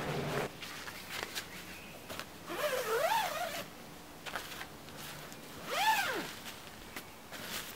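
Sierra Designs Convert 2 tent's door zipper being pulled along the curved door edge in two long strokes, a few seconds apart. Each stroke has a pitch that rises and falls with the pull.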